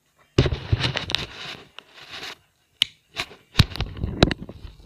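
Crackling, scraping handling noise on the recording device's microphone as it is moved and rubbed, with several sharp clicks and knocks.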